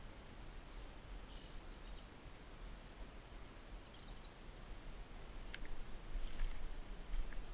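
Quiet field ambience: a low wind rumble on the microphone with a few faint high chirps, one sharp click about five and a half seconds in, then rustling footsteps through long grass near the end.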